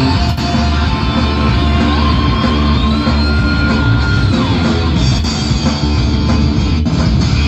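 Loud music with heavy bass played through a sound-contest loudspeaker system. A tone in the track rises about two seconds in, holds, and falls back about four and a half seconds in.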